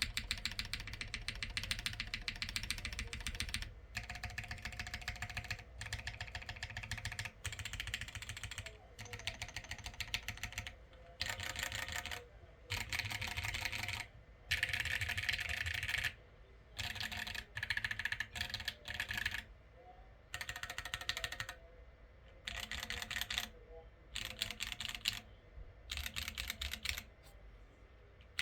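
Mechanical keyboard typing: a plateless Duality TKL with lubed Gateron Ink Black linear switches and PBT keycaps, typed on in fast runs of key clicks of one to three seconds with short pauses between them. The builder calls its sound a bit hollow.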